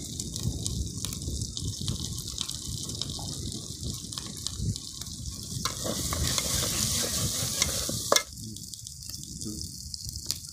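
Fish masala sizzling in an aluminium pot over a wood fire, with a steady low rumble underneath. From about six seconds in the spatula stirs and scrapes through it and the sound grows louder, ending in a sharp click a little after eight seconds.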